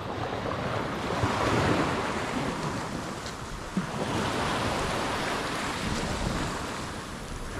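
Sea surf washing on the shore, with wind buffeting the microphone: a steady rushing hiss that swells and eases.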